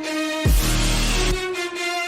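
Electronic music: a held synth chord, with a deep bass hit about half a second in that drops in pitch and rings for about half a second.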